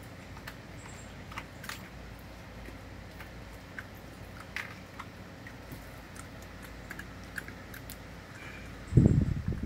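An American Eskimo dog biting at ice cubes in a bowl of ice water: a string of sharp clicks and crunches as the cubes knock about and crack between her teeth, over a steady low hum. Near the end there is a sudden loud low thump.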